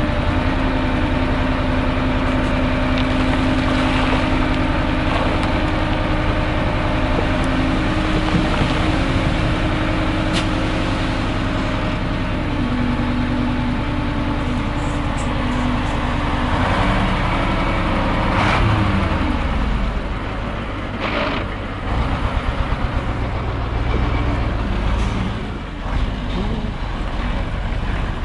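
Ural six-wheel dump truck's engine running steadily while the tipper body is raised and the load of soil slides out, with a rush of noise about two-thirds in. The engine note then drops lower and rougher as the truck moves off through the mud.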